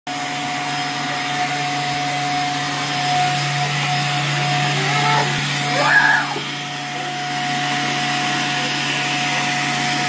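Vacuum cleaner running steadily on carpet, a constant motor hum with a fixed whine over a hiss of rushing air. About five to six seconds in, a young child gives one short high squeal that rises and falls.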